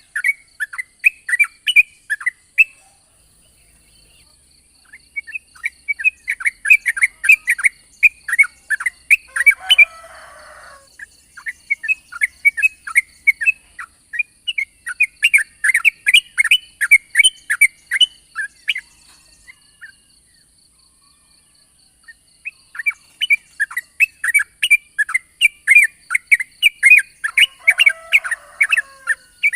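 Yellow-vented bulbul (trucukan) singing long rapid runs of short chattering notes, about four to five a second, in three bursts separated by short pauses, with a couple of lower descending calls mixed in. A steady faint high hiss sits under it.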